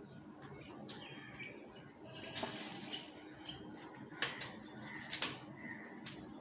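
Handling of a light tripod as its legs are pulled out: a rustling swish about two and a half seconds in, then a run of sharp clicks and rattles from the leg sections and locks.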